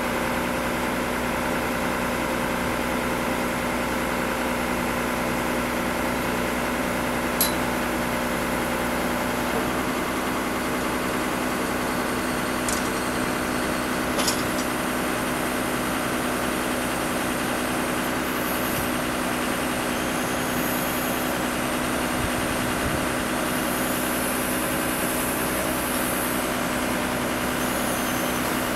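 The truck engine and hydraulic pump powering an HMF 1063 K3 knuckle-boom crane run with a steady hum while the boom folds in. A few sharp clicks come about a quarter and half way through.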